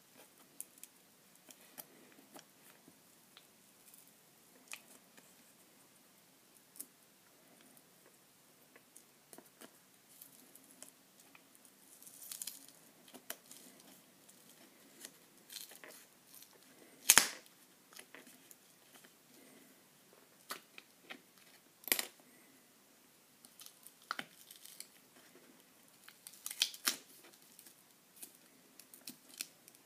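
Small pry tool clicking and scraping against an iPhone 5's battery as it is worked loose from its adhesive, with faint scattered clicks, short tearing noises and a sharper snap about 17 seconds in.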